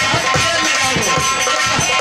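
Live folk dance music: quick, even drum beats under a steady held drone of sustained tones.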